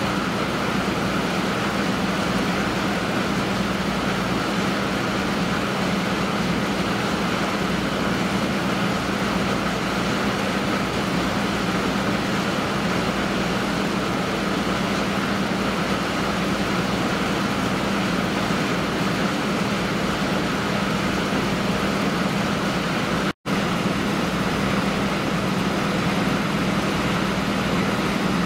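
Steady low mechanical drone over a constant hiss, with an unchanging hum underneath; it breaks off for an instant about 23 seconds in.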